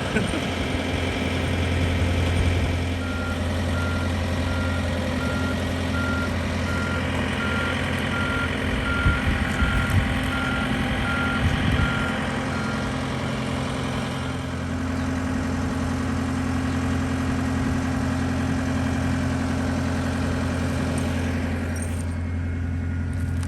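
Boat engine running steadily. For about ten seconds, starting a few seconds in, a series of short, evenly spaced beeps at one pitch sounds over it.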